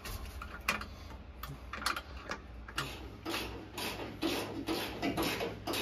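Ratchet wrench clicking as a seat-mount bolt is tightened: a few scattered clicks, then quicker, regular strokes of about three a second from about halfway in.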